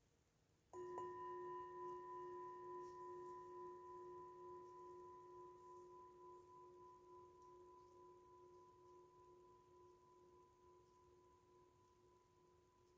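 Metal singing bowl struck once, about a second in, then ringing with a low hum and higher overtones that fade slowly.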